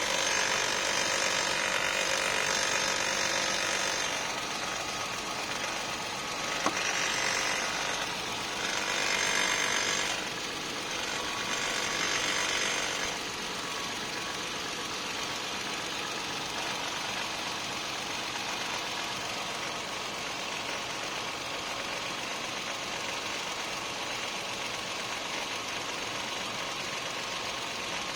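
Toyota 4Runner's 1GR-FE 4.0-litre V6 engine running with a strange noise that the owner cannot identify. It is louder for the first dozen or so seconds, with one sharp click about seven seconds in, then settles to a steady run.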